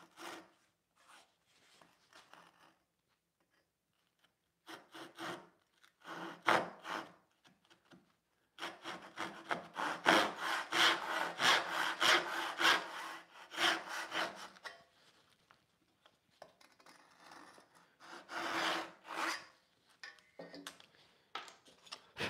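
A fine-toothed 15 TPI backsaw crosscutting a small piece of poplar by hand, each stroke a rasping rub of teeth through the wood. It starts with a few short starting strokes, then a fast steady run of strokes in the middle, the loudest part, and a few more strokes later as the cut finishes.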